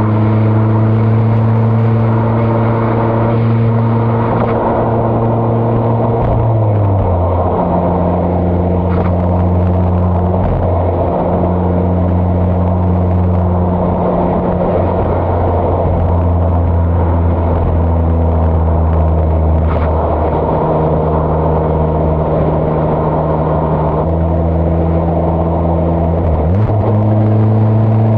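Mazda ND Roadster's four-cylinder engine and exhaust running at a steady cruise. Its pitch drops about a quarter of the way in, holds steady, then climbs quickly near the end.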